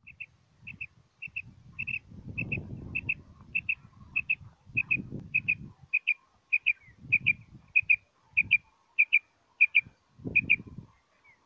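Caged common quail (Coturnix) calling: short, high double notes repeated steadily about twice a second. Low rumbling noise comes and goes underneath.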